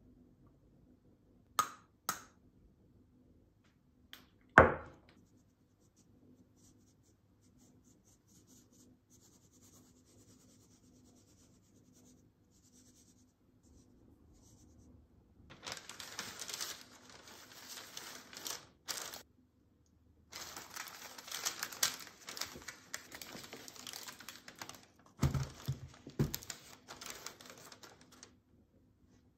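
Two light clicks and then one sharp knock from a metal mesh sieve being tapped while icing sugar is sifted. After a quiet stretch comes a long spell of crinkling and rustling as a sheet of paper is handled, with a few short pauses.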